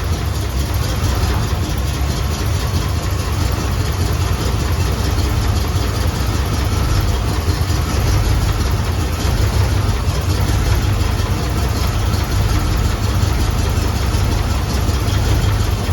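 Chevrolet 283 small-block V8 with throttle-body fuel injection idling steadily.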